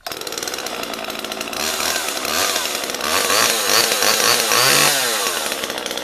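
Homelite XL-2 two-stroke chainsaw starting up suddenly, then revved several times so the engine note rises and falls, loudest about four to five seconds in, before dropping back to a steadier idle.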